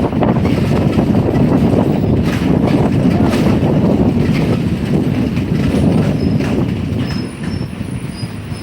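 Steady low rumble of a moving vehicle, road and wind noise heard on the move, easing off somewhat about seven seconds in.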